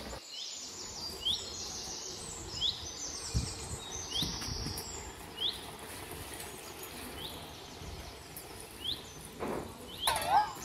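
Birds chirping: a short call repeating about once a second, over busier, higher twittering. A louder wavering sound comes near the end.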